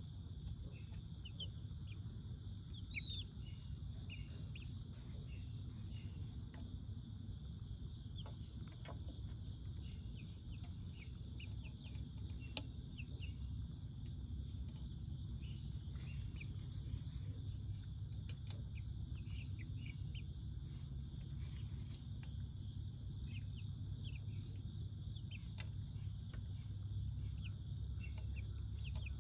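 Young chickens peeping in short, scattered chirps throughout, over a steady high-pitched whine and a low rumble.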